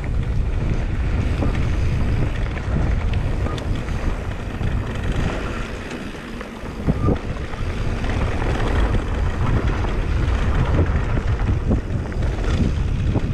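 Wind rumbling on the microphone of a mountain bike rider moving along a dirt trail, with scattered knocks and rattles from the tyres and bike over bumps. There is a brief lull about halfway through, followed by a few sharper knocks.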